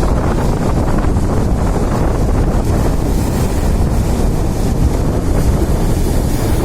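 Sea surf and strong wind, the wind buffeting the microphone in a steady low rumble. A brighter hiss of surf builds in the second half.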